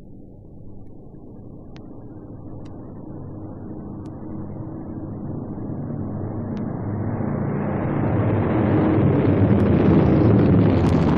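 Douglas DC-7 airliner's four radial piston engines running at takeoff power, a low propeller drone that grows steadily louder as the plane comes closer.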